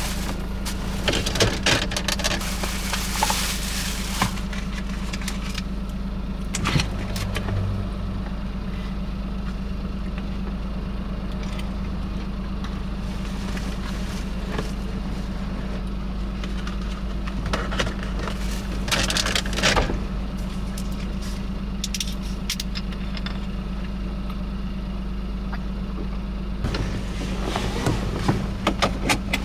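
Car engine running steadily with a low, even hum, heard from inside the car. Scattered patter and clicks come over it, heaviest at the start, around two-thirds through and near the end.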